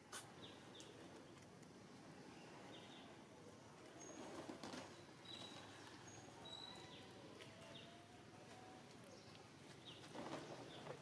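Faint outdoor ambience with scattered short, high bird chirps. There are soft knocks about four and a half and ten seconds in.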